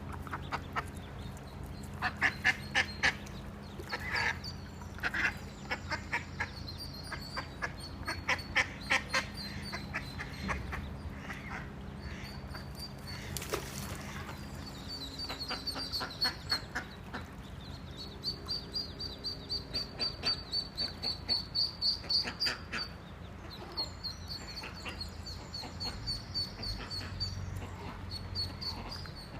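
Ducks and ducklings calling: ducklings peeping in long, high, rapid strings, mixed with runs of lower, short duck calls.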